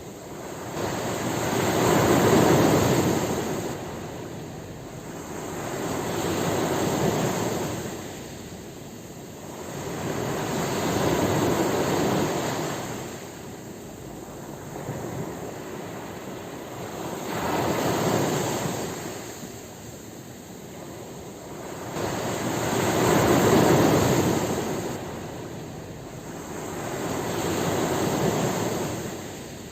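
Ocean waves: a rush of surf that swells and fades six times, one surge every four to six seconds.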